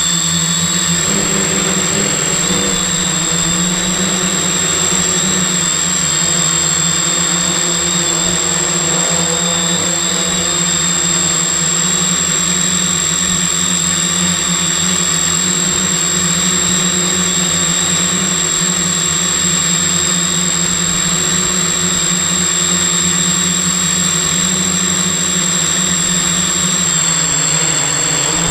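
Multirotor drone's brushless motors and propellers running steadily in a hover, heard up close from a camera mounted on the frame: a loud, even propeller hum with a steady high whine over it.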